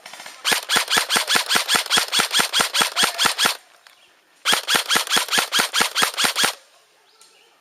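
Airsoft gun firing on full auto in two long bursts, a rapid even rattle of about seven shots a second, the first lasting about three seconds and the second about two.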